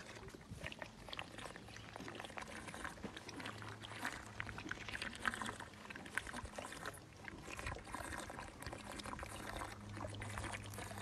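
A baby elephant sucking milk from a large feeding bottle: a stream of wet slurping, gulping and trickling sounds.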